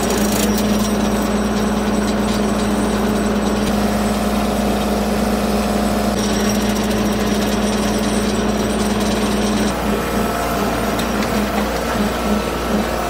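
Bobcat CT2025 compact tractor's diesel engine running steadily under work. About ten seconds in, the steady drone gives way to a rhythmic pulsing.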